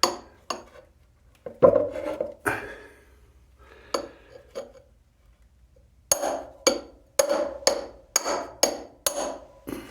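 Glass breaker on the butt of a SOG Trident AT folding knife striking a pane of glass without breaking it: sharp knocks that ring briefly. A few knocks are spaced out at first, then a quicker run of about eight comes near the end, roughly two a second.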